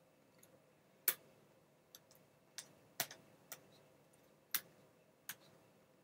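About seven sharp, light clicks and taps at irregular intervals: a small precision screwdriver and tiny screws handled against the plastic case of a laptop screen assembly as the screws are driven back in.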